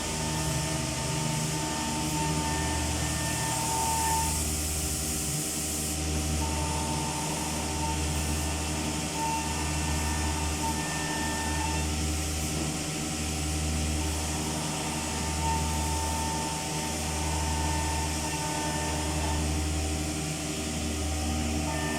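Cladding CNC machine running: a steady machine whine with a low hum that swells and fades about every two seconds, and a higher tone that comes and goes.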